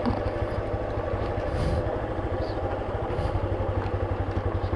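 Motorcycle engine running steadily at low speed, its exhaust giving an even, rapid low pulsing beat.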